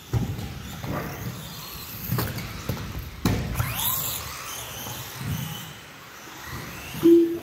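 Electric RC cars running on an indoor carpet track, their motors whining up and down with the throttle, with several sharp knocks. A short beep sounds near the end.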